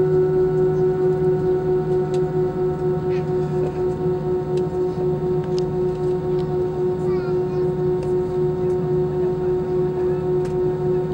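Airbus A321 cabin drone while taxiing, its jet engines running steadily at idle: one strong held hum with fainter steady tones above it and a few faint clicks.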